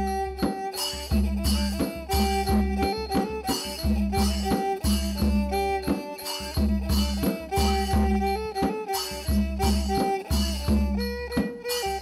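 Background music with a steady bass beat under a repeating melody.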